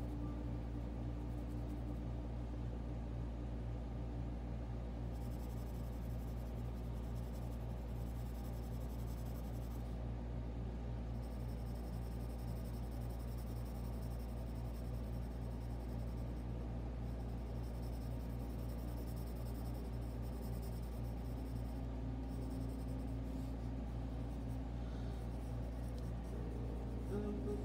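Pencil scratching on sketchbook paper in steady strokes as a drawing is shaded, over a constant low hum.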